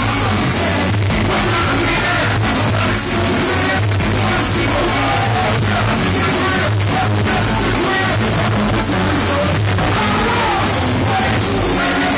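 Live hip-hop played loud through a club sound system: a heavy, bass-driven beat with a rapper's vocals over it, continuous throughout.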